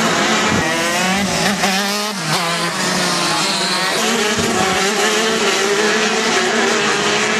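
Several 125 cc two-stroke racing kart engines running at once as a pack of karts laps the circuit. Their high-pitched buzz rises and falls as the karts brake into corners and accelerate out, with the pitch swooping most about a second in.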